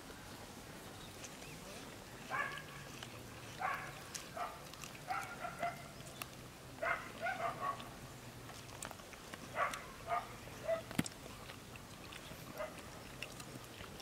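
An animal calling in short pitched yelps, about a dozen in small clusters, over a faint low steady hum.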